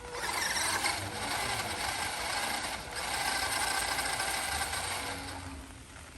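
A small RC truck's electric motor and gearbox running as it drives, a steady mechanical whir that tapers off near the end.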